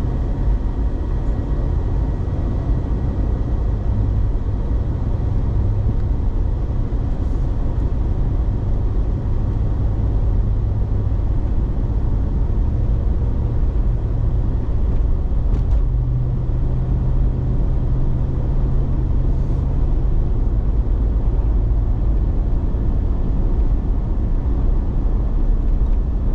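Steady low rumble of road and engine noise heard from inside a moving car's cabin while cruising.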